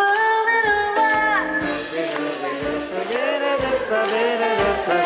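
A woman scat-singing wordless vocal lines through a microphone over a live band, her pitch sliding up and down.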